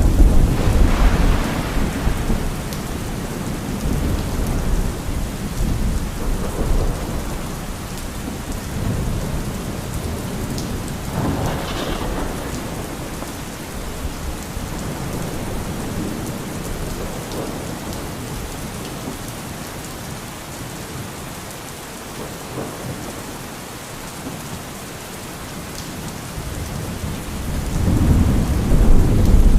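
Thunderstorm: steady rain with rolling thunder. A loud clap at the start rumbles away over the first few seconds, a sharper crack comes about eleven seconds in, and another long rumble builds near the end.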